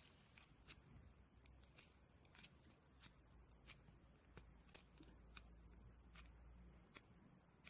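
Near silence: faint, irregular small clicks, about one or two a second, over a low steady hum of room tone.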